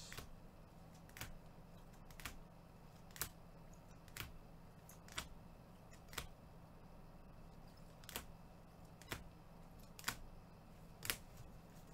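Faint sharp clicks, about one a second, over a steady low electrical hum.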